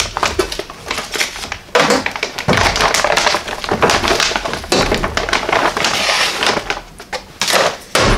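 Clear plastic packaging crinkling and rustling in irregular loud bursts as coiled welding leads are pulled out of their bag.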